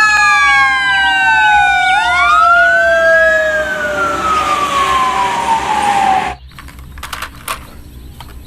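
Toy fire truck siren: several tones sliding slowly downward together, with one swooping up and back down near the middle. It cuts off suddenly after about six seconds, leaving only a few faint clicks.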